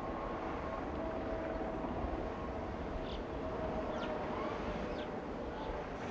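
Electric rack railcar of the Pilatus Railway running uphill on its cog track: a steady rumbling hum with a faint steady whine, and a few faint short chirps about halfway through.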